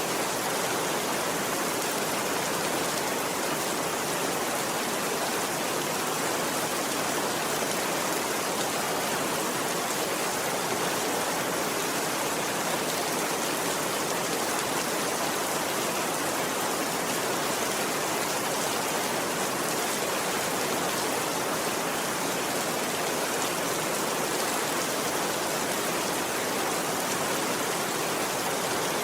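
Steady, even rain that neither swells nor fades.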